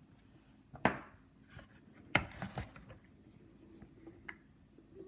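Items from a product box being handled and set down: two sharp knocks about one and two seconds in, with a few lighter taps and faint rustling between.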